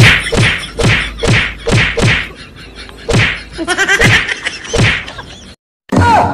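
Rapid string of punch and slap hits, about two or three a second, thinning out after about three seconds, with a brief falling tone near the end.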